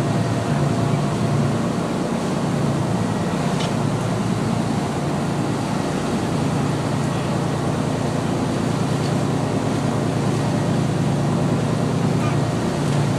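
Fishing boat's engine running steadily under way, a low drone over the rush of wind and water, with a few faint clicks from time to time.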